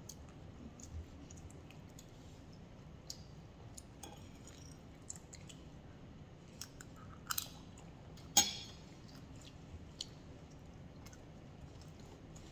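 A person chewing a mouthful of flatbread close to the microphone, with small scattered clicks and one sharp knock about eight seconds in.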